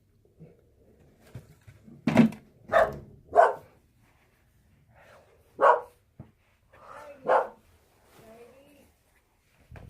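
A dog barking: three quick barks about two seconds in, then two more single barks spaced out after them.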